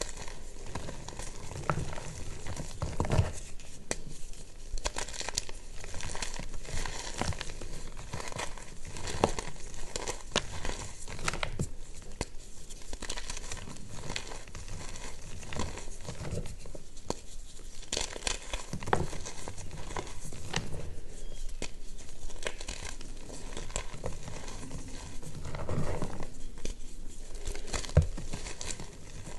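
Reformed gym chalk crushed in the hands, crunching and crackling without a break as the pressed chalk chunks crumble into pieces and powder.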